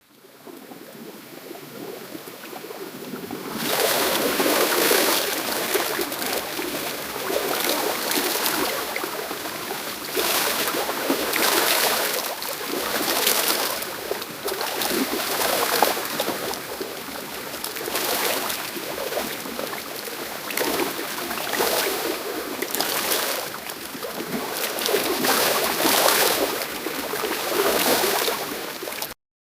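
Drowning sound effect: water splashing and bubbling, muffled as if underwater. It fades in over the first few seconds, then comes in repeated surges every second or two, and cuts off suddenly near the end.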